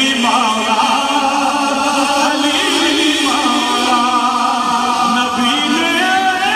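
A man singing an Urdu devotional manqabat live into a microphone, drawing out long wavering notes.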